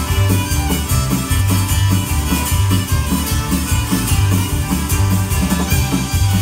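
Live band playing an instrumental passage: strummed acoustic guitar, bowed fiddle, accordion, bass guitar and drums, driven by a steady beat.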